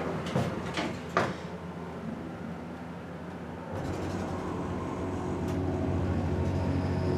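A few knocks from the elevator doors in the first second or so, then at about three and a half seconds in the hydraulic elevator's pump motor starts and runs with a steady low hum as the car begins its up run.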